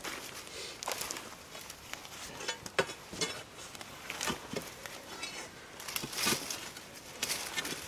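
Irregular scuffs, crunches and knocks as a log is worked with a hand-held log-moving tool on muddy, leaf-covered ground, mixed with footsteps. The sharpest knock comes a little before three seconds in.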